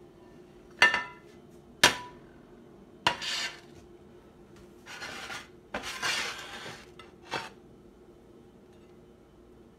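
Frying pan and plastic spatula knocking against a ceramic plate while a pan-fried puffball slice is slid onto it: two sharp, ringing clinks about a second apart, then a few short scrapes and a final clack.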